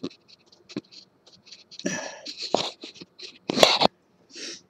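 Irregular scraping and rubbing handling noise from a handheld webcam brushing against a rough crystal specimen and the cloth beneath it, with one louder scrape about three and a half seconds in.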